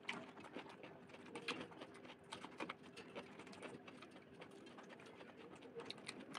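Soft, irregular wet clicks and squishes of fingers mixing rice and fish curry on a steel plate, over a faint steady hum.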